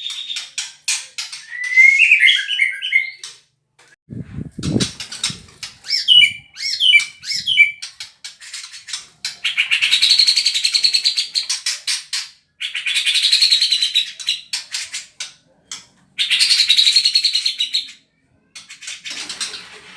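White-rumped shama (murai batu) singing a dense run of mimicked cucak jenggot calls: long buzzy rattling trills of about two seconds each alternate with short clear whistled phrases. A dull knock comes about four seconds in.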